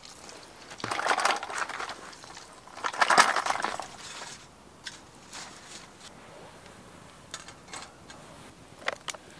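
Oyster shells clattering against metal as they are tipped out of a pot into a metal tray, in two rattling pours of about a second each. After that come a few light clicks and clinks, the sharpest near the end, as a wire grill grate is set over the campfire.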